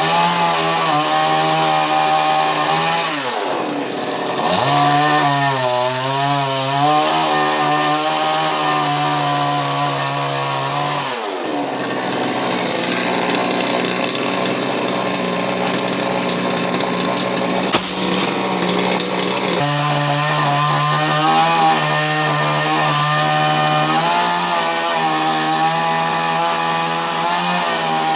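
Two-stroke chainsaw cutting coconut palm wood, running at high revs with a steady buzzing note. Its pitch sags and recovers about three seconds in and again around eleven seconds, and wavers up and down around six seconds as the load changes.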